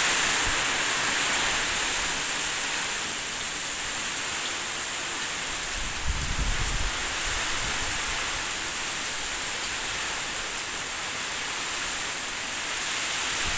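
Heavy tropical downpour in a windstorm: a steady hiss of rain, with a short low rumble of wind buffeting the microphone about halfway through.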